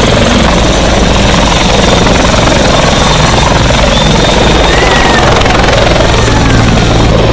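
Helicopter running close at high power as it lifts off: fast rotor chop over a steady high turbine whine.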